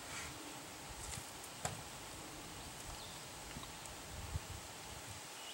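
Faint light clicks and taps from a flux brush working epoxy putty into a riveted aluminum hull seam, the sharpest click about one and a half seconds in, over a quiet outdoor background.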